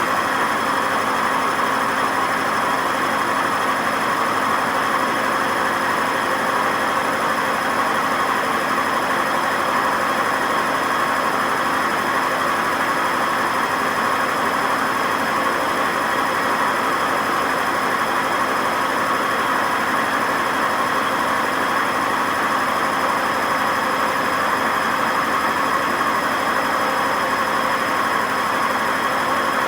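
Hotpoint WMA50 washing machine drum spinning at a steady high speed with no ballast weights fitted, loud throughout, with a steady high whine over a dense rushing noise. This is the very bad bearing noise of failing drum bearings.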